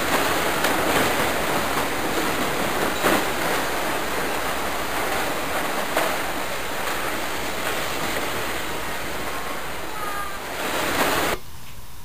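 A steady, even rushing noise with a few faint clicks in it, cutting off abruptly just before the end.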